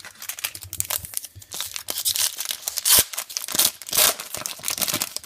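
Trading card pack wrapper being torn open and crinkled by hand: irregular crackling and tearing, loudest in the middle with a few sharp crackles.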